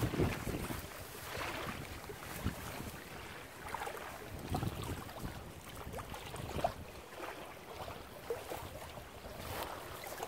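Shallow lake water splashing as a released fish thrashes and swims off from the shore, with wind buffeting the microphone.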